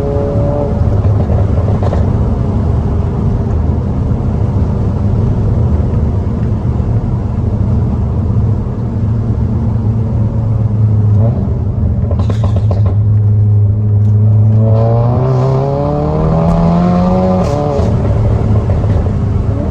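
SEAT Cupra's turbocharged engine with a downpipe and resonator-delete exhaust, cruising at steady revs. About 15 s in it accelerates with rising revs, dips briefly at an upshift near the end, then pulls on at a higher note.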